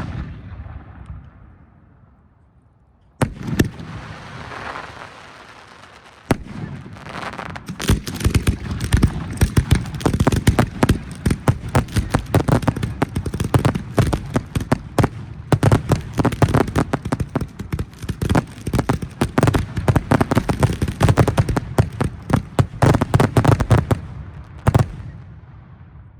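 Professional aerial firework shells launching from mortars and bursting: two single reports with crackling tails, then from about eight seconds in a dense barrage of rapid bangs lasting some sixteen seconds, the show's closing barrage, ending with one last report.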